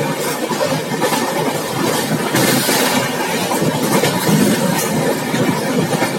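Express train running at speed, heard from an open carriage door: a steady rumble of wheels on the track with rushing noise. There is a brief louder hiss about two and a half seconds in.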